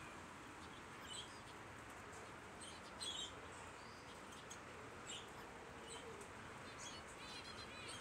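Small aviary birds, budgerigars among them, giving scattered short, high chirps, the loudest about three seconds in, over a faint steady hiss.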